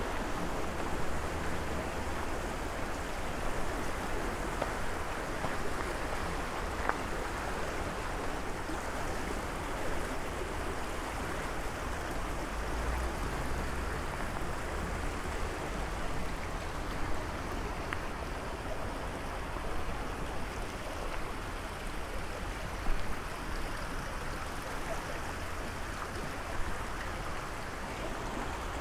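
Steady rush of flowing river water, with a few faint knocks here and there.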